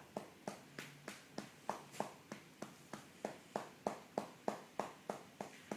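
A hand patting a newborn baby's back to bring up a burp: steady, even pats, about three a second.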